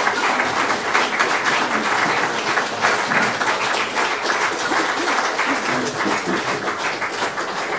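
Audience applauding: many hands clapping in a dense, even crackle.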